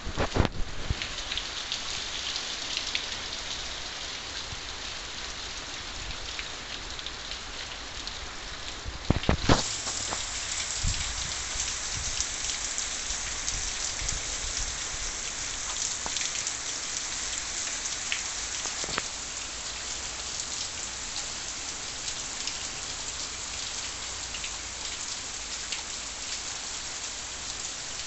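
Steady rain falling, a continuous even hiss. A few short knocks come right at the start and again about nine seconds in, after which the rain sounds brighter.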